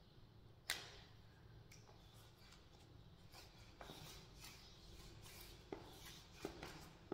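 Faint rubbing and small clicks of hands pressing and smoothing a white skirting strip against a wall, with one sharp click about a second in and a few lighter taps later.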